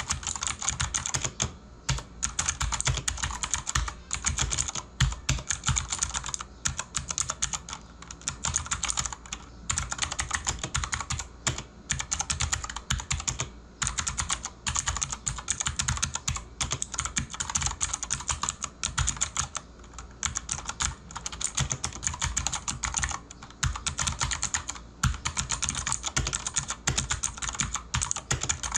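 Redragon Kumara K552-2 mechanical keyboard being typed on quickly: a dense clatter of clicky switches and double-shot keycaps, broken by short pauses every couple of seconds.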